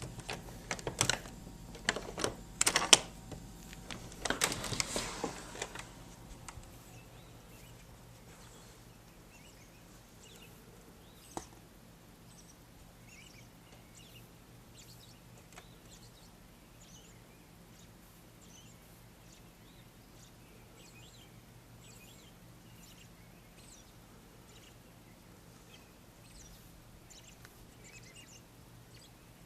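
Loud clicks and rustling of handling noise for about the first six seconds. Then many faint, scattered high chirps of early-morning songbirds over a steady low hum.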